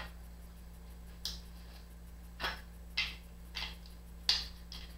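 About six small, sharp clicks at irregular intervals, from the parts of a Beyblade spinning top being pulled apart by hand.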